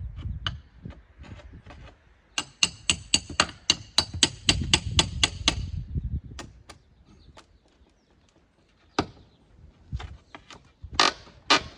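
A rapid run of ringing metallic hammer taps, about five a second for some three seconds, with scattered knocks around it and two louder strikes near the end, as clapboard siding is worked loose from its nails.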